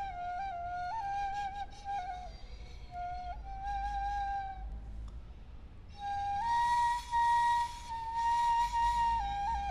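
A Maya wind instrument played as a single melodic line, hovering around a few close notes with small dips in pitch. It pauses about five seconds in, then comes back louder and a little higher, with a breathy edge.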